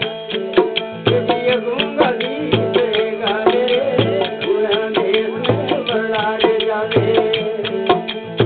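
Indian devotional folk music from a bhajan: a hand drum keeps a steady rhythm under sustained held notes, with a wavering melody line and frequent sharp percussive clicks.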